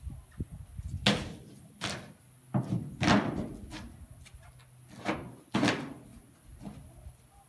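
A series of heavy thumps and knocks, about six, irregularly spaced, the loudest about three seconds in.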